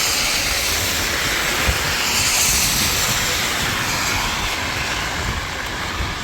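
Strong wind buffeting the microphone with a low, uneven rumble, over the steady hiss of heavy rain.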